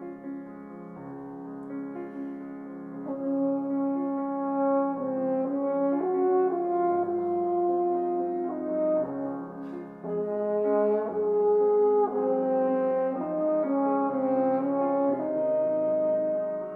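French horn playing a melody in held notes, accompanied by a Steinway Spirio|r grand piano playing back on its own.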